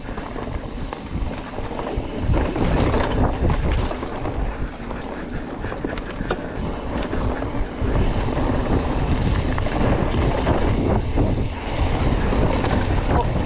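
Wind buffeting the microphone over tyres rolling on a dirt singletrack as a Commencal hardtail mountain bike descends, with a few sharp clicks and rattles from the bike about six seconds in.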